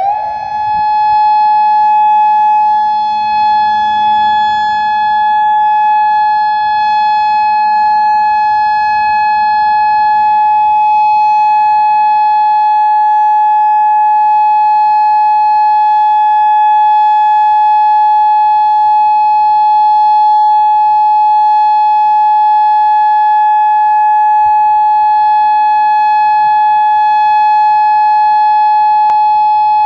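Federal Signal Modulator II 3012B electronic outdoor warning siren sounding its steady alert tone: one loud, unwavering pitch held throughout, the alert signal of a warning-siren test.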